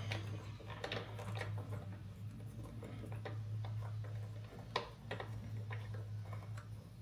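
Irregular small clicks and taps of metal hardware being handled as a hand knob is threaded back onto the reel mower's roller bracket and tightened, with one sharper click about three-quarters of the way through. A steady low hum runs underneath.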